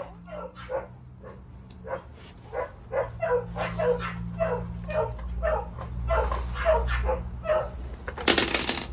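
A dog barking and yipping over and over, about two to three times a second, with a short burst of hiss near the end.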